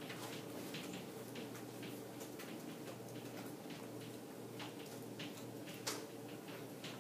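Chalk writing on a blackboard: short, irregular taps and scratches, a few a second, with one sharper click near the end, over a steady low hum.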